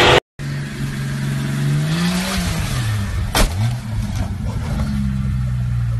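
An SUV engine running under load off-road, revving up and back down, with one sharp bang about three and a half seconds in.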